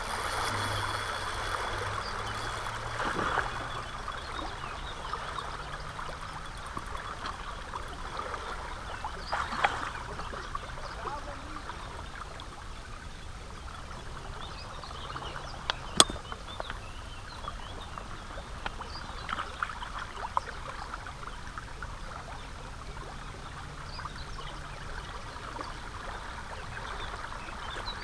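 Steady rush and trickle of river water over a stony bank, broken by a few short sharp knocks or clicks, the sharpest about halfway through. A faint low hum comes in near the start and again near the end.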